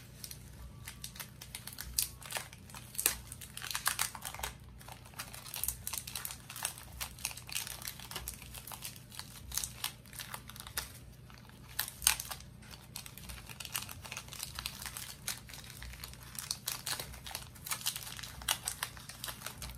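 Plastic bag and paper wrapping crinkling and crackling in irregular bursts as hands work a plant loose from its taped-up nursery pot.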